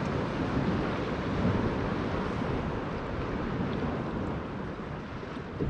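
Steady rush of wind and sea waves, with wind buffeting the microphone.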